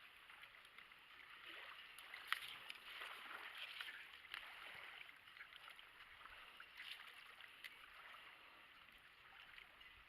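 Faint water lapping and trickling around a small boat, with scattered small ticks and one sharp click about two seconds in.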